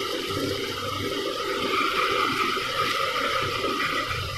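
Boiled potatoes and spring onions simmering in a little water in a non-stick pan and being stirred with a wooden spatula, over a steady hiss.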